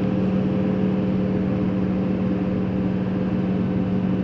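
Nodwell tracked snow vehicle's engine running steadily while under way, a constant drone with a strong low hum that holds at one pitch.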